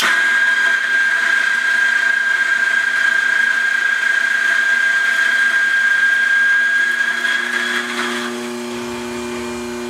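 Eureka Oro Mignon single-dose coffee grinder grinding a dose of beans for espresso: the motor starts at once with a steady high whine. About eight seconds in the sound drops and settles to a lower, quieter hum as the burrs run empty.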